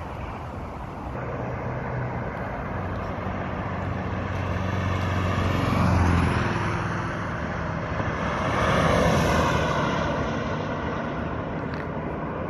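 Lexus LX570's 5.7-litre V8 accelerating hard away from the camera. The engine note builds to a peak about six seconds in, then a second swell of engine and road noise rises and fades near nine seconds.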